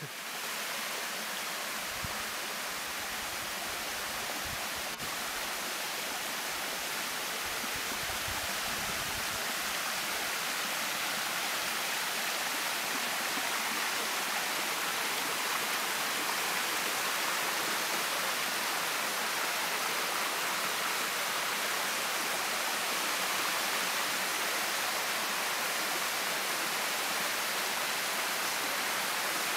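Steady rushing of a rocky forest stream as water runs over boulders and rock slabs in small cascades, with a few low bumps in the first several seconds.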